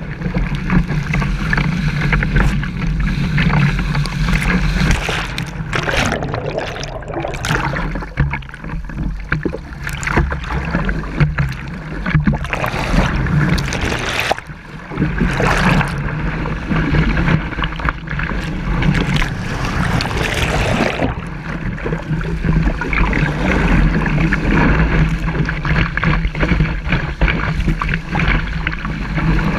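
Rushing water and splashing spray on a kiteboard-mounted action camera's microphone as the board cuts through waves, with wind buffeting the microphone. About halfway through the camera goes briefly into the foam and the sound drops, then comes back in a rush of noise.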